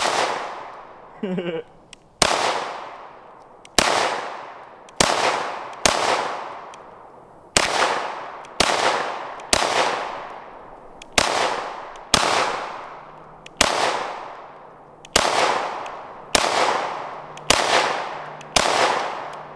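Smith & Wesson SD9 2.0 9mm pistol fired in a steady string of single shots, about one a second, each shot trailing off in a long echo.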